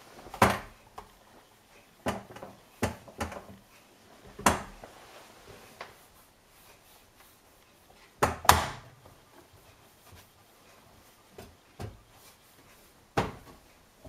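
Scattered sharp knocks and bumps from handling a front-loading washing machine's door and drum opening while its rubber door gasket is wiped clean. The loudest is a quick double knock about eight and a half seconds in.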